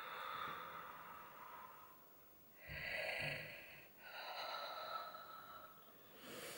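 A woman in early labour breathing deeply and audibly: three long breaths, each lasting one to two seconds, with short pauses between them.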